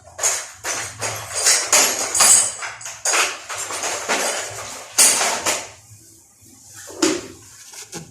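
Repeated loud rattling and scraping noises from handling washing-machine parts during the repair, irregular strokes about every half second over a faint low hum, thinning out near the end.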